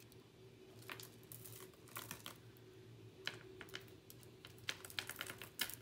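Small scattered clicks and taps of gold-tone metal earrings being handled and turned over in the fingers, coming more often near the end, over a faint steady low hum.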